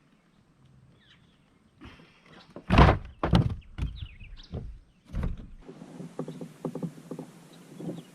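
Several loud knocks and thumps of gear bumping the plastic hull of a fishing kayak, followed by a steady hiss with light clicking.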